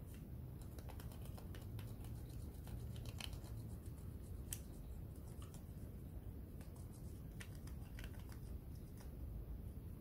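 Cotton swab scrubbing around the rubber keypad of a TV remote control: faint, irregular scratchy rubbing and light clicks, over a low steady hum.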